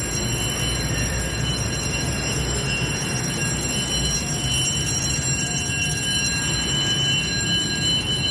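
Fire alarm sounding continuously: a steady, unbroken high ringing tone with several higher overtones held level, over a low rumble.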